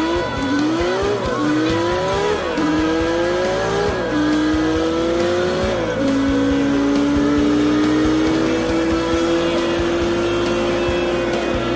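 A vehicle engine accelerating hard through the gears: its pitch climbs and drops back about four times in quick succession, then climbs slowly in one long pull.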